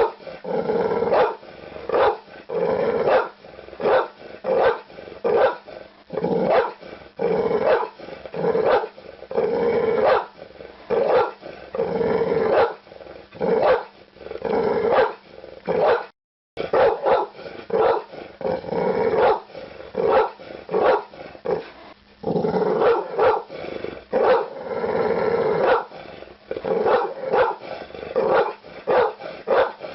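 Pit bull barking over and over in rapid volleys, mixed with longer growling stretches. The sound drops out for half a second about halfway through.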